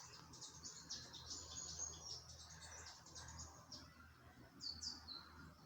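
Birds chirping faintly, many short high calls, with two louder down-slurred calls about five seconds in.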